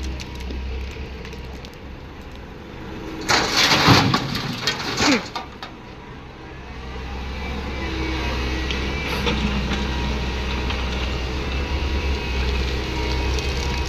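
Komatsu PC200 hydraulic excavator's diesel engine running steadily, with a loud rough clattering burst about three to five seconds in. From about six seconds on the engine grows louder and holds, working under load.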